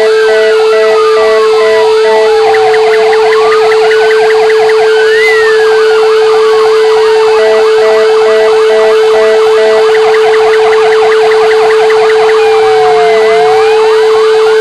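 Fire engine sirens sounding together: slow wails that rise and fall, fast yelps and an alternating two-tone hi-lo, all over one steady unbroken tone. They are sounded as the 'W' Hour remembrance signal for the Warsaw Uprising.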